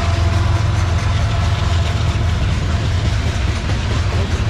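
Freight train tank cars rolling past: a steady low rumble of steel wheels on the rails with light clicking.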